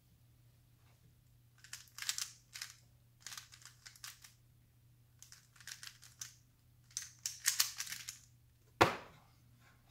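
Plastic Rubik's cube being twisted fast by hand, its layers turning with quick clicking rattles in short flurries. Near the end comes a single sharp knock, the loudest sound.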